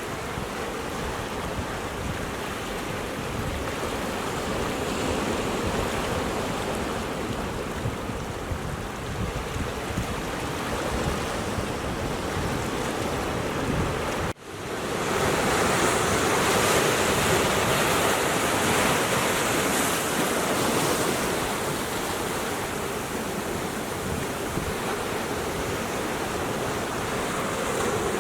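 Ocean surf breaking and washing against a rocky shore: a continuous rushing of waves. About halfway through there is an abrupt break, after which the surf is louder and brighter.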